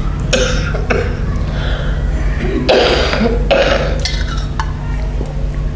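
A man drinking water from a glass close to a microphone: a few short gulps and breaths, the loudest about three seconds in, over a steady low electrical hum.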